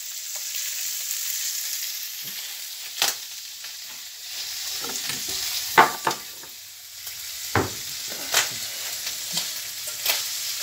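Squid rings sizzling as they fry in a pan, a steady hiss, with several sharp knocks and clicks over the top.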